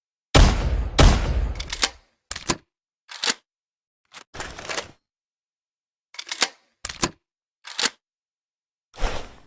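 Double-barrel shotgun sound effect: two loud shots about a second apart, each with a long fading tail, followed by a run of short metallic clicks and clacks spread over the next several seconds, like the gun being broken open, reloaded and snapped shut.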